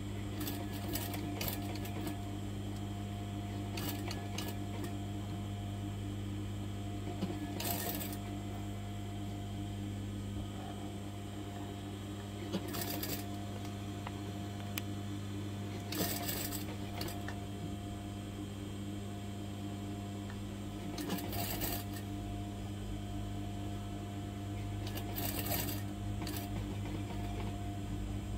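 Sewing machine running steadily with a continuous hum as it stitches a collar onto a garment. A few short sharp noises break in now and then.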